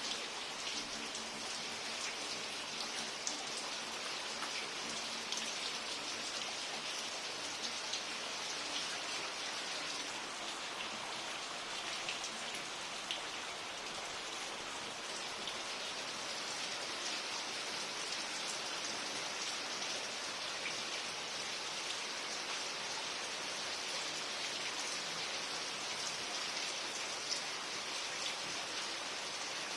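Steady rain falling, with many small drops ticking on surfaces and plant leaves.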